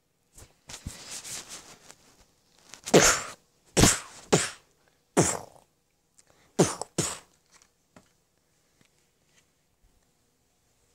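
A person making six sharp, breathy bursts with the mouth, some in quick pairs, after a stretch of softer rustling noise.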